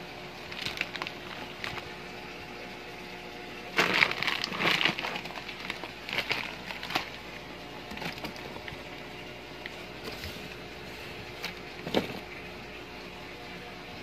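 White plastic washing-machine gear cases clattering and knocking against each other as they are rummaged through in a cardboard box, in irregular bursts, the busiest spell about four seconds in and a single sharp knock near the end. A steady low hum runs underneath.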